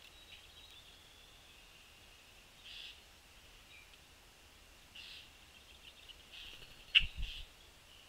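Wild songbirds chirping faintly and steadily, with a few short, louder calls. About seven seconds in there is one sharp knock with a brief low thud.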